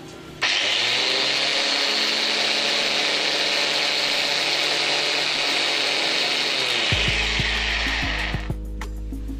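Hand angle grinder rigged as a corn mill, running loud with a hissing grinding noise and a faint high whine. It starts abruptly about half a second in and cuts off after about eight seconds.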